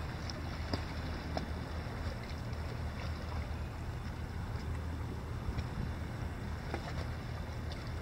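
Wind buffeting the microphone with a steady low rumble, over the soft lapping of a calm sea against shoreline rocks, with a few faint scattered clicks.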